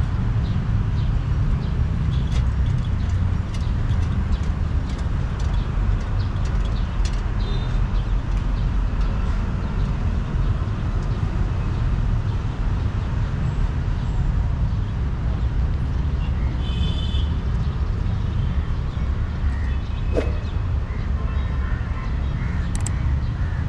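Outdoor street ambience: a steady low rumble with scattered small clicks and a few faint distant sounds.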